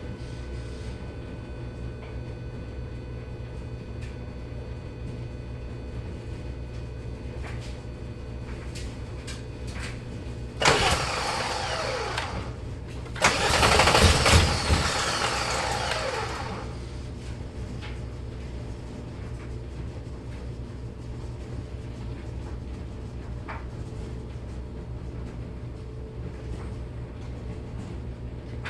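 Volkswagen GTI VR6 engine being cranked by the starter twice, the first time about two seconds, the second about three seconds, and not catching: a crank-no-start fault.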